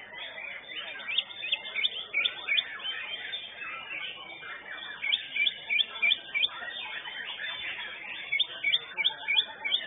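White-rumped shama (murai batu) singing: quick runs of sharp, high chirps and whistles, thickest about a second in and again near the end.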